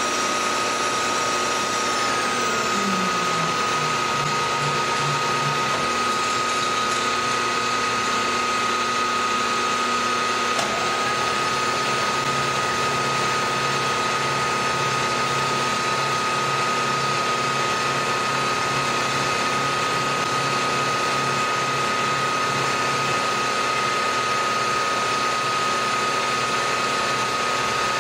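Milling machine running a face mill through an aluminium block on a finishing pass: a steady spindle whine with the hum of the cut. There is a short downward slide in pitch about two to three seconds in.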